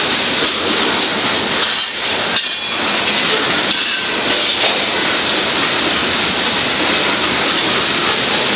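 Union Pacific freight train's boxcars and covered hoppers rolling past close by, wheels running on the rails with a loud, steady noise. A few metallic clanks ring out between about two and four seconds in.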